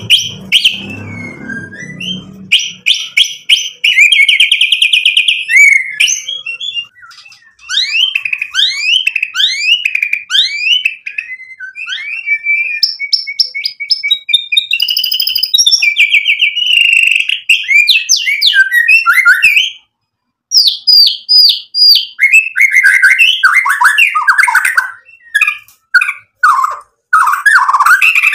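White-rumped shama (murai batu) singing loudly without stopping, in a varied song of fast rising and falling whistled notes, trills and harsh chattering rattles that include mimicked phrases (isian). The song breaks off briefly about twenty seconds in.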